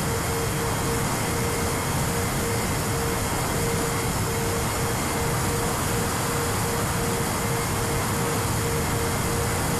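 Air rushing past a Sonicmodell Binary twin-motor FPV plane in cruising flight, with the steady hum of its two brushless motors; one mid-pitched tone pulses evenly on and off, about two to three times a second.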